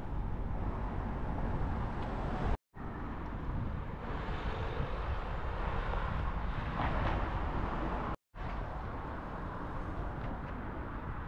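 Road traffic over a low rumble, swelling as a car passes about seven seconds in. The sound drops out for a moment twice.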